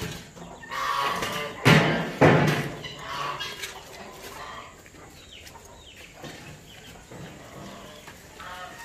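Poultry flock calling: chickens clucking, with a couple of loud calls about two seconds in, then fainter chirps.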